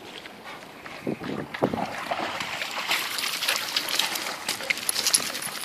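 Water splashing and trickling as a wet border collie comes up out of a shallow stream onto a gravel bank, with many small crackles, louder from about two seconds in.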